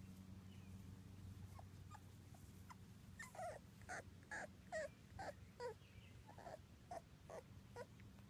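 Two-week-old Labrador puppies whimpering: short, high squeaks that slide in pitch, a few faint ones at first, then a run of about a dozen at roughly two a second from about three seconds in, over a low steady hum.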